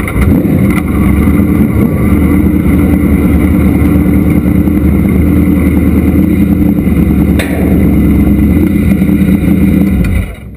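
Vintage modified race car's engine running at a steady low speed, heard from inside the cockpit. It cuts off abruptly near the end, as the car stops.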